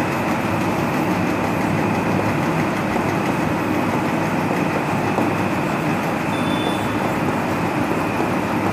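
Steady, unbroken background hum and rumble like a running machine, loud and even throughout.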